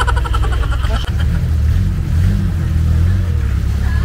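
Engine of a long-tail canal boat running steadily under way, a low drone heard from aboard the boat, with a brief laugh or voice in the first second.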